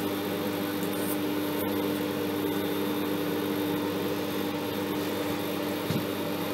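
Steady electrical buzz with one strong, unchanging hum tone, from the high-voltage supply driving a lit Geissler tube.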